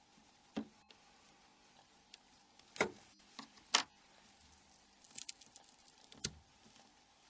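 A handful of small, sparse clicks and taps from a mobile phone's small parts and tools being handled on a work surface during disassembly; the two sharpest taps come around three and four seconds in.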